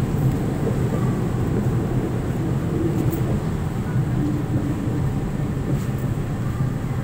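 Steady low rumble of city background noise, traffic and station hum, with no distinct events.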